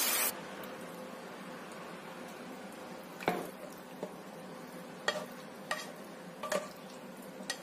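Metal spatula clinking against a wok and serving plate as stir-fried broccoli is dished up: half a dozen sharp clinks, the loudest about three seconds in, over a faint steady hiss from the pan. A louder hiss cuts off right at the start.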